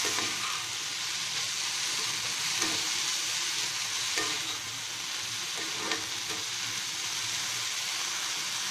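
Mint leaves with roasted dals, dried red chillies and garlic sizzling steadily in oil in a granite-coated frying pan, being sautéed down until dry. A spatula scrapes across the pan a few times.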